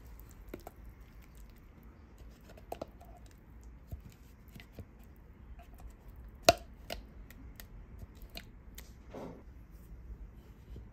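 Spatula scraping thick, wet chickpea paste out of a plastic bowl into a pan: soft squishing with scattered light clicks and taps, the sharpest tap about six and a half seconds in.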